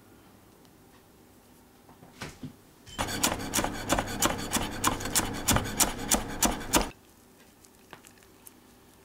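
Chef's knife rapidly chopping fresh coriander on a wooden cutting board, about four strokes a second with a raspy scrape. It starts about three seconds in and stops abruptly about four seconds later.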